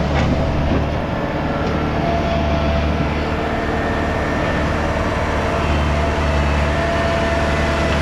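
Thomas 243 S skid steer's engine running steadily under load as the machine drives its bucket into a pile of dirt, with a faint steady whine above the engine.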